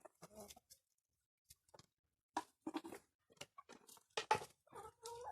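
Laying hens clucking softly in a few short calls, among scattered light knocks and rustles.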